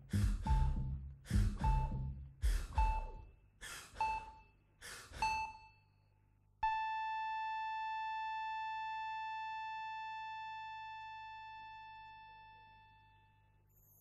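Show music: paired drum hits, each with a chiming note, repeat about once a second and grow steadily fainter. After a short pause, a single bell-like chime note is struck and rings on, slowly dying away.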